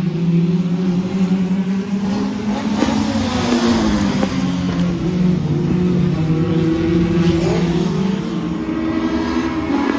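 Several classic touring race cars going through a corner on a wet track, their engines overlapping and rising and falling in pitch as they brake and accelerate, with tyre hiss from the spray.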